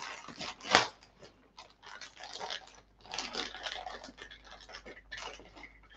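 Plastic toy wrapper crinkling and rustling as it is torn open by hand. There is a sharp crackle about a second in.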